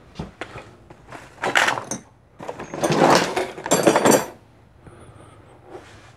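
Rummaging through a cluttered shelf of tools and parts: hard plastic and metal items clattering and scraping as they are shifted. The sound comes in several bursts, loudest around three to four seconds in.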